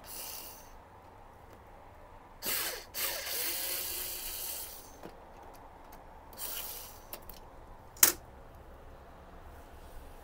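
Small cordless electric screwdriver running in short bursts to back out a printer cover screw, with its longest run about three to five seconds in. A sharp click about eight seconds in is the loudest sound.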